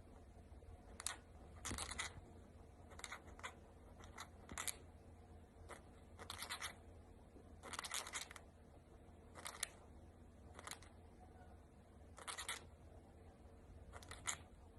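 Cockatiel making its clicking noise: a dozen or so short bursts of sharp clicks, singly or in quick clusters, at irregular intervals.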